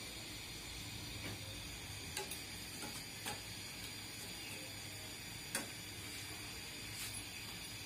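Faint steady hiss of flower pitha frying in hot oil, with a few light clicks of a metal rod against the pan.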